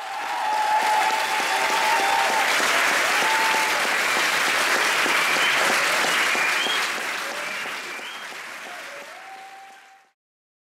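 Audience applauding, with a few voices calling out over the clapping. The applause fades away over the last few seconds and stops just before the end.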